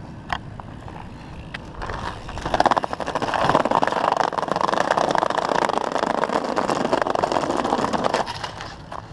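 A BMX bike rolling on concrete: a rough, grainy rolling and scraping noise that comes up loud about two seconds in and drops away near the end, with a few light clicks before it.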